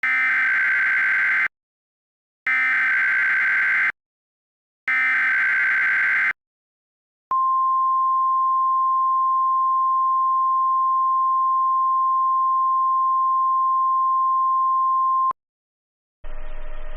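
NOAA Weather Radio Emergency Alert System signal announcing a tornado watch: three bursts of harsh, buzzing SAME data tones, each about a second and a half long, then the steady weather radio warning alarm tone held for about eight seconds. Radio hiss comes in near the end.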